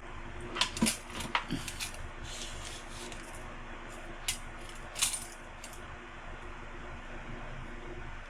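Small metal parts clinking and knocking as they are handled: a quick run of sharp clinks in the first second and a half, then two more about four and five seconds in.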